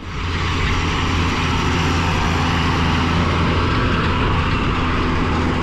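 John Deere 6630 tractor engine running steadily while pulling a Duncan direct seed drill, a constant low drone under an even hiss. It starts abruptly at the outset.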